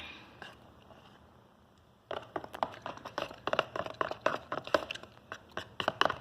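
Glue and toothpaste slime mixture being stirred in a container: after a quiet start, rapid irregular sticky clicks and crackles begin about two seconds in.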